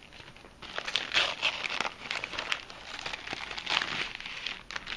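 Packaging crinkling and rustling in irregular bursts as a mailed package is handled and opened. It starts about half a second in.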